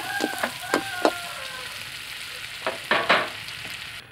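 Crispy pork belly pieces sizzling in sauce in a wok while a spatula stirs them, scraping and clicking against the pan in two clusters, about a second in and again near three seconds. The sizzling cuts off just before the end.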